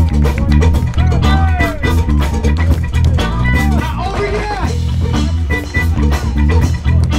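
Music with a steady beat, a heavy bass line and guitar.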